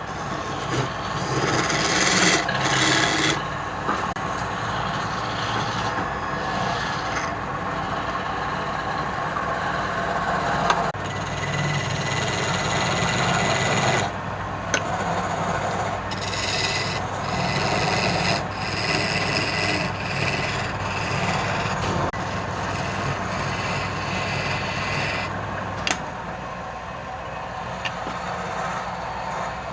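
Wood lathe running with a low steady motor hum while a turning tool scrapes and cuts the spinning wood, a rasping noise that changes in strength and shifts a few times.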